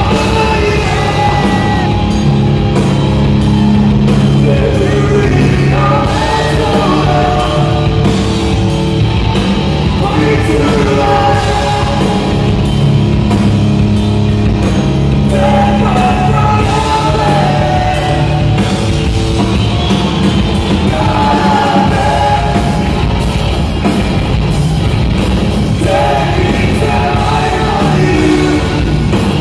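Live heavy metal band playing: distorted electric guitars, bass and drums under a sung and shouted lead vocal, heard from the audience in a concert hall.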